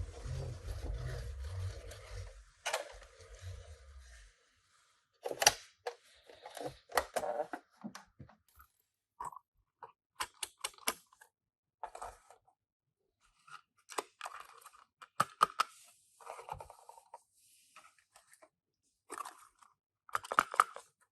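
Small cardboard boxes and plastic packaging being handled and opened by hand: irregular rustling, tearing and sharp clicks, with a low rumbling noise during the first four seconds.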